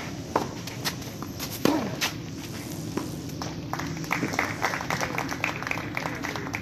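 Tennis rally on a clay court: sharp pops of rackets striking the ball about every second and a bit, the loudest about a second and a half in, followed by a quicker run of lighter ticks in the second half.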